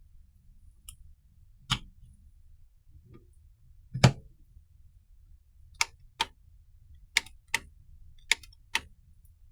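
A series of sharp clicks and taps, about eight in all, at irregular intervals. The loudest comes about four seconds in, and several follow in quick pairs towards the end.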